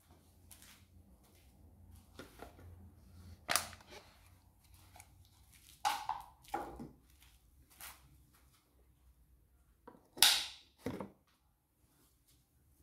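A few separate plastic knocks and clatters from work in a van's engine bay: the oil funnel is lifted out of the oil filler neck and the oil filler cap is put back on. The sharpest knock comes about ten seconds in, followed by a second one.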